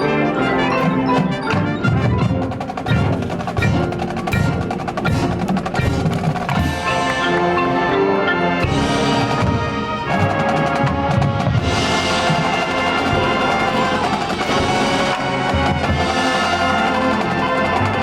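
Marching band playing: drums and mallet percussion, with chimes and marimba, carry the passage, and sustained wind and brass chords come in about seven seconds in.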